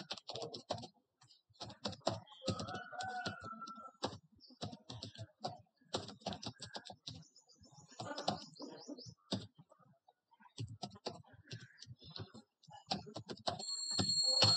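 Computer keyboard typing in runs of quick keystrokes with short pauses, as an email address and then a password are keyed in. A brief high tone sounds near the end.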